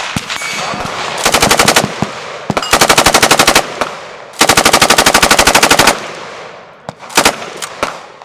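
Fully automatic gun fired in four bursts, three long ones and a short one near the end, at roughly a dozen shots a second, with range noise and echo between them.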